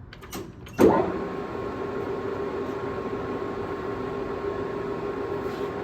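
JET GH1460ZX toolroom lathe starting up with a sharp clunk about a second in, then its spindle and geared headstock running steadily at 436 RPM with a constant hum and a higher, even whine.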